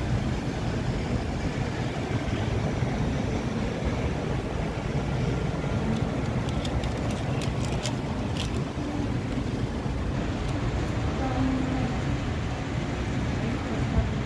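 A steady low rumble of background noise, with a short run of light, sharp clicks about six to eight seconds in.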